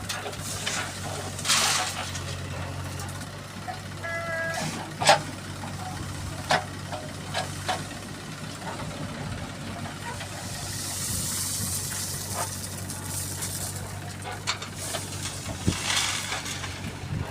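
Diesel engine of heavy earthmoving machinery running steadily, with several loud hissing bursts and scattered sharp knocks and clanks.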